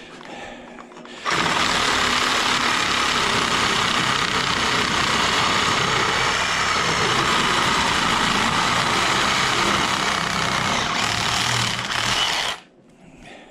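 Electric power tool cutting scrap metal, running steadily for about eleven seconds with a sudden start a second in and an abrupt stop near the end.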